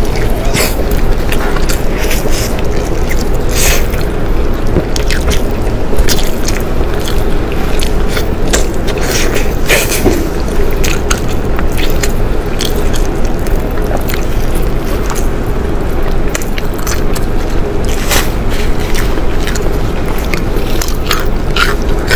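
Close-miked eating of pork tail: wet, sticky biting and chewing, with many short sharp smacks and clicks over a constant low hum.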